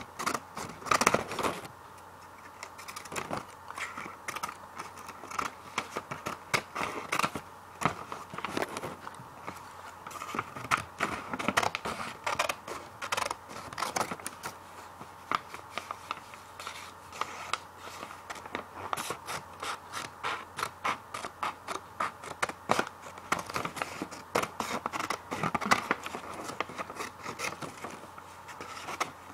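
Scissors cutting paper: crisp snips one after another, in places packed into quick runs of several a second.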